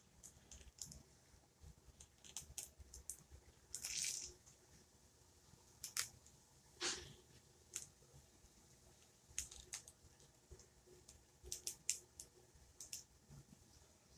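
Faint, scattered small clicks and brief rustles of a plastic action figure and its detachable hand piece being handled and fitted, with a slightly louder rustle about four seconds in and another near seven seconds.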